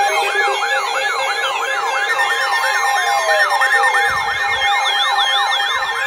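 Several electronic alert sirens sounding at once, each a fast rising-and-falling warble repeating several times a second, layered over steady beeping tones, typical of weather alert radios going off for a warning.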